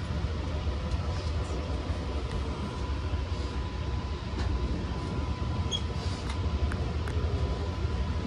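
Long Island Rail Road train running, heard from inside the car: a steady low rumble with a thin steady tone above it and a few scattered light clicks.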